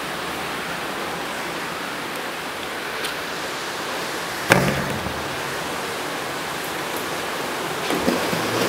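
Steady hiss, even across the range, with a single sharp knock about four and a half seconds in and a couple of fainter clicks.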